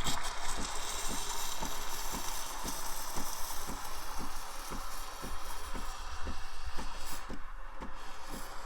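Breville BES870XL espresso machine's steam wand hissing steadily while frothing milk, with a regular low pulsing from the machine about three times a second.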